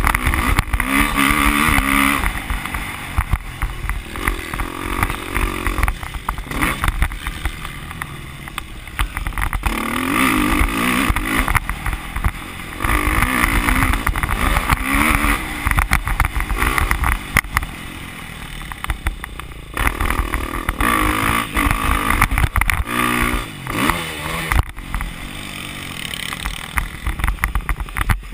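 Motocross dirt bike engine ridden hard round a dirt track, revving up and easing off again and again, its pitch climbing with each burst of throttle.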